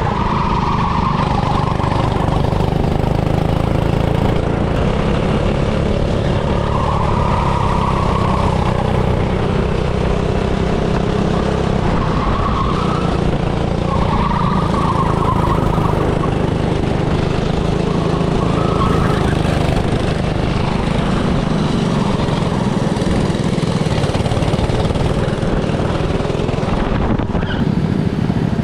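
Small go-kart engine running under load, its note swelling and falling back every few seconds.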